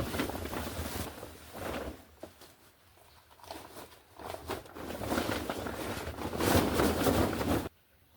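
Dry leaves and brush rustling and crackling in uneven bursts, louder in the second half, then cutting off abruptly near the end.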